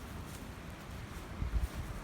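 Wind buffeting the microphone in low rumbling gusts, strongest about a second and a half in, over a steady outdoor hiss.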